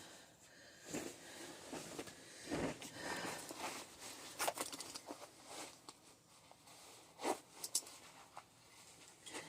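Faint, scattered clicks, taps and rustles of handling and movement. The sharpest clicks come about four and a half and seven seconds in.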